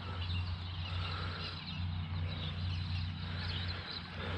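Outdoor ambience: faint bird calls over a steady low hum.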